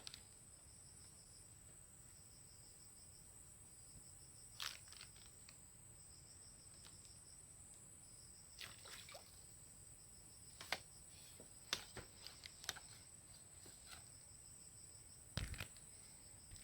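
Faint, steady high-pitched insect chorus, with a pulsing trill beneath it, under soft scattered clicks and rustles.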